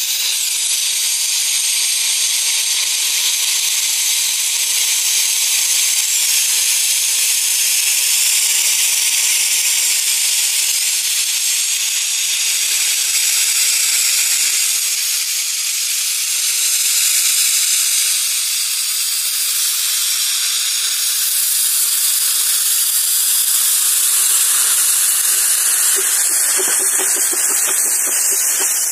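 Steady loud hiss of steam escaping from a 15-inch-gauge 4-6-2 steam locomotive, RHDR No. 10 Doctor Syn, its cylinder drain cocks blowing as it stands at the head of its train. Near the end a faint low pulsing joins the hiss.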